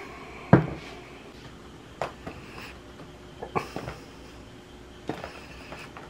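A handful of separate knocks and clunks, like things being handled and set down, with the loudest about half a second in.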